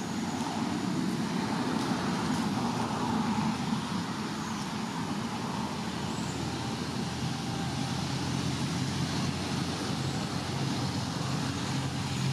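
Steady rumble of road traffic, with a low engine hum coming up near the end.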